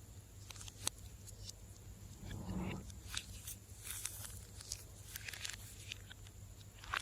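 Slime being squeezed and pressed by hand: scattered sticky clicks and crackles, with one longer squelch about two and a half seconds in.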